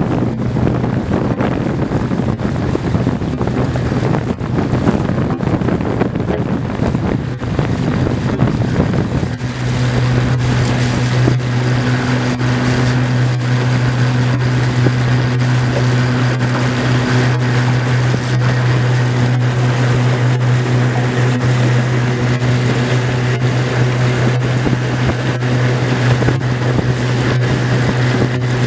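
Johnson outboard motor on an aluminium fishing boat running at steady cruising speed, a low even drone. For the first third wind buffets the microphone, then the motor's tone comes through strong and steady.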